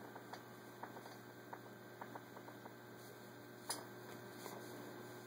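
Faint, irregular clicks and ticks from a vintage Singer 401A sewing machine and the denim under its foot, with one sharper click a little before four seconds in, over a steady low hum.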